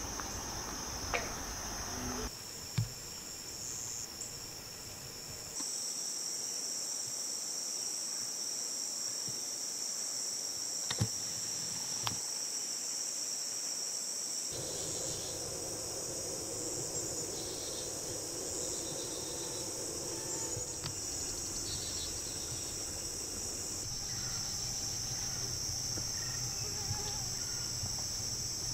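Steady, high-pitched chorus of insects, with a few faint clicks.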